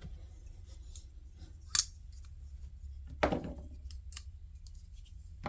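Folding pocket knives handled: two sharp metallic clicks, one a little under two seconds in and a louder one just past three seconds, with faint ticks between.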